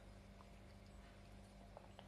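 Near silence: a steady low electrical hum, with a couple of faint clicks.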